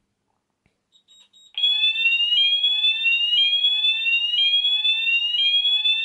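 C-Tech voice sounder on a Hochiki ESP addressable fire alarm sounding its medium sweep tone, a rising sweep repeating about once a second and starting about a second and a half in. The garage smoke detector has gone into alarm from test smoke.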